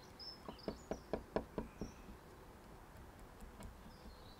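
A cake slice scraping and picking at the edge of a sticker stuck on a car's rear window glass: about seven short scratchy clicks in quick succession in the first two seconds. Birds chirp faintly in the background.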